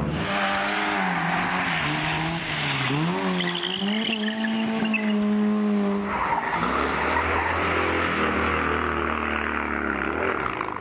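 Small rally cars' engines on a wet tarmac test. For the first six seconds an engine revs up and down, with a brief high tyre squeal in the middle. After that, a Fiat 126p's engine runs low and steady while its tyres hiss on the wet surface.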